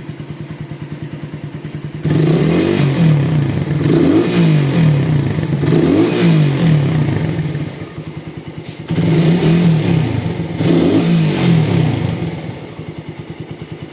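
Motorcycle engine on a new vacuum carburettor with BRT CDI and coil, idling with a fast even pulse, then revved in quick repeated blips from about two seconds in. It drops back to idle briefly, is blipped several more times, then settles to idle near the end; the engine is running healthy, smooth and strong.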